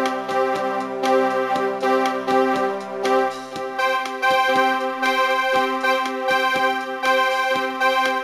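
Background music with sustained chords over a steady beat; the chord changes about three and a half seconds in.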